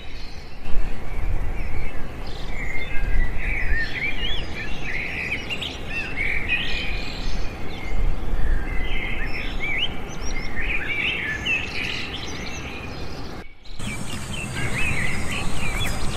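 Many small birds chirping and calling at once in a steady outdoor chorus of short, quick notes, over a low rumble. The chorus briefly breaks off about three-quarters of the way through.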